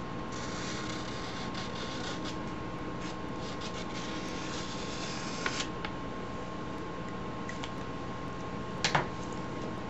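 Marker scratching across a paper mask in a run of quick drawing strokes, followed by a sharp click near the end.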